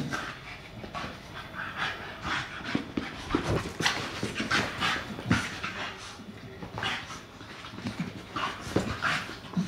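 Staffordshire bull terriers panting during rough play, in uneven breathy puffs.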